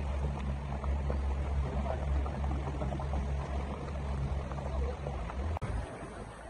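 Small tour motorboat's engine running with a steady low drone, with water rushing along the hull. The sound breaks off abruptly about five and a half seconds in, the drone dropping out briefly before it returns.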